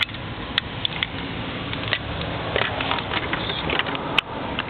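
Handling noise of wire ends being held together to test a connection: scattered light crackles and small clicks, with three sharp clicks, near the start, about half a second in and about four seconds in.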